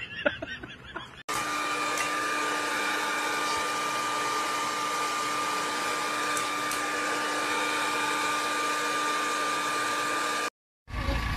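Handheld hair dryer running steadily: an even rush of air with a constant low hum and a higher whine. It starts abruptly about a second in and cuts off shortly before the end.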